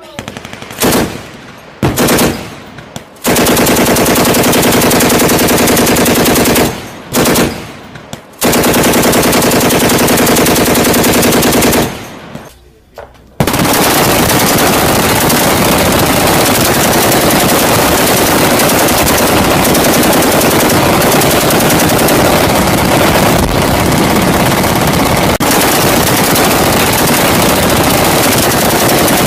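DShK ('Dushka') 12.7 mm heavy machine gun firing on full automatic. First come a few short bursts with brief pauses, then longer bursts, and a little before halfway the fire becomes unbroken and runs on without a gap.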